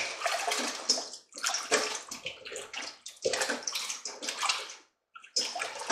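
Water sloshing and splashing in a stainless steel bowl as hands swish and rub raw chicken wings in lemon water. It comes in a run of uneven strokes, with a brief pause near the end.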